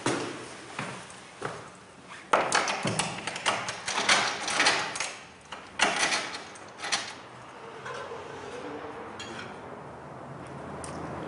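Footsteps echoing on a hard floor, about one every 0.6 s, then a quick flurry of clatter and scraping as stiff cardboard sheets are handled and slid over one another. The handling stops about two-thirds of the way in, leaving a faint steady background.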